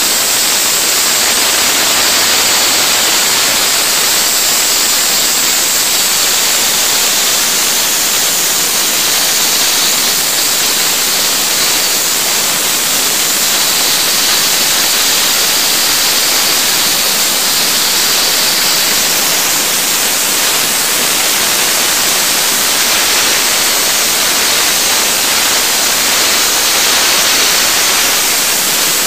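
Blizzard ice-blasting jet: compressed air blowing CO2 dry-ice pellets and water-ice particles out of a blasting nozzle, a loud, steady hiss strongest in the high end.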